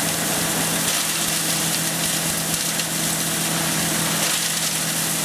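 BW-1530 wood chipper running steadily, its engine holding an even speed under a constant hiss.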